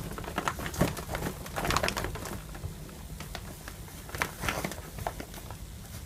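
A cat's claws scratching and rustling on a hanging fabric shoe organizer as it climbs, in irregular bursts of crinkly clicks.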